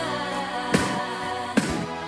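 Music with sustained pitched tones, cut by two sharp bangs, one under a second in and another about a second and a half in.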